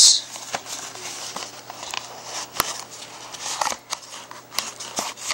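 Cardboard packaging being opened and handled by hand: rustling and scraping with many short, sharp clicks and taps as the box is worked open to get the body spray out.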